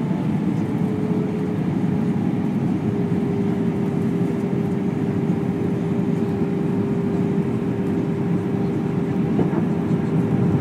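Steady in-flight cabin noise of an Airbus A320: an even rush of airflow and engine drone with a constant low hum running through it.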